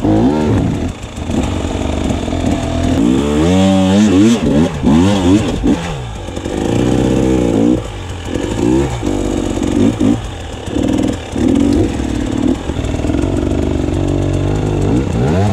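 KTM EXC 300 TPI two-stroke enduro engine revving up and down in quick repeated bursts as the throttle is worked, its pitch rising and falling many times.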